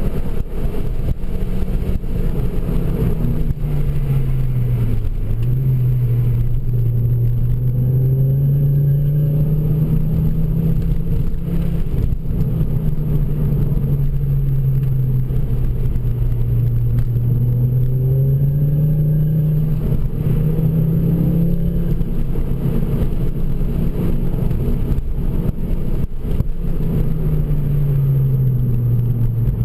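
Ford Focus RS MkII's turbocharged 2.5-litre five-cylinder engine, fitted with a Milltek exhaust, pulling through a run of bends, heard from inside the cabin. The engine note rises and falls steadily with the throttle. It drops sharply about five seconds in and again near the end, as on a lift-off or gear change.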